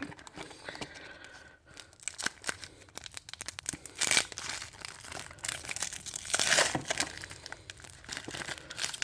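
A trading-card pack wrapper being torn open and crinkled, with small clicks and rustles of handling. There are two longer tearing rustles, about four seconds in and again around six and a half seconds in.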